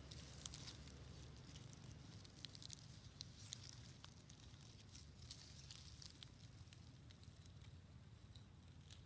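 Near silence: faint outdoor ambience with a low steady rumble and scattered small crackles and rustles, thickest in the first few seconds.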